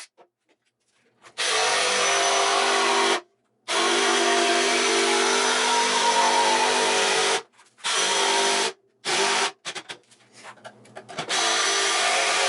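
Power tool running and cutting into wood, in several stretches of a few seconds each that start and stop abruptly, with a steady motor hum under the cutting noise: cutting the circular bowl holes in a wooden top.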